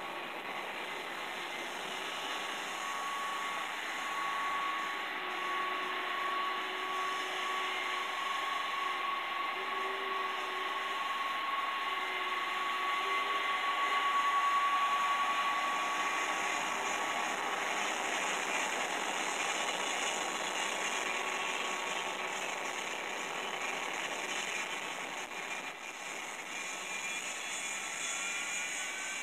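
Jet airliner engines running with a steady whine, heard played back through a screen's speaker. A rising whine comes in near the end.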